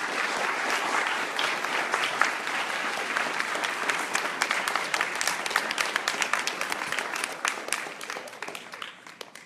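Audience applauding, dense clapping that starts at once and tapers off near the end.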